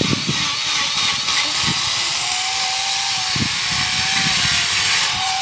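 Grinder saw, an angle grinder fitted with a small chain bar, running steadily at full speed as its chain cuts into a dead coconut palm trunk.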